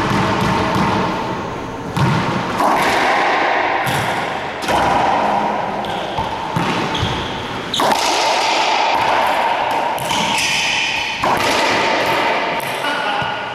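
Racquetball play in an enclosed court: the hard rubber ball cracking off racquets, walls and floor. Several sharp hits come a second or more apart, each trailing a long echo.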